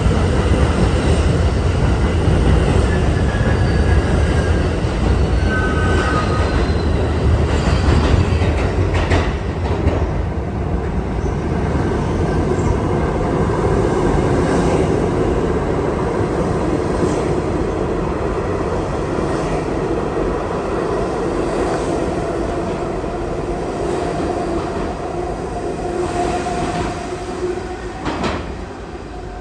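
New York City subway train running on the track: a heavy rumble with clicks from the wheels and a brief wheel squeal a few seconds in. The rumble fades gradually.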